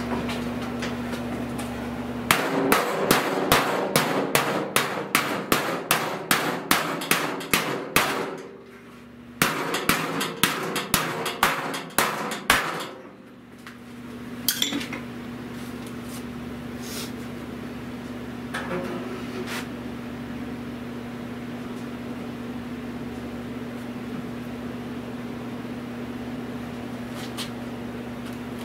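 Body hammer striking the steel of a 1970 Buick Wildcat lower fender to work out dents and distortion, in quick runs of about three to four blows a second. There are two such runs split by a short pause, then a few single taps.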